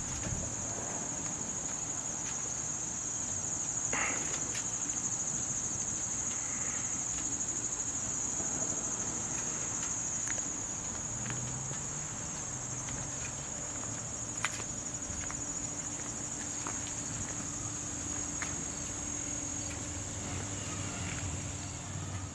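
Steady high-pitched insect chirring with a fine, even pulse, joined by a few faint scattered clicks.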